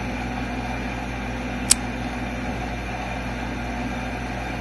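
Steady low hum and hiss of background room noise, with one sharp click about a second and a half in.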